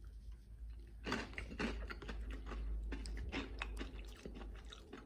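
A person chewing and crunching a piece of chocolate treat close to the microphone: irregular soft crunches and mouth clicks that start about a second in.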